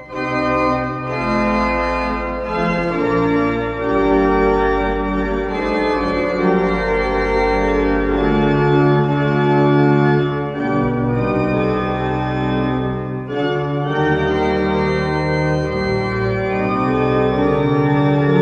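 Church organ playing the closing voluntary: held chords that change every second or two over deep low notes.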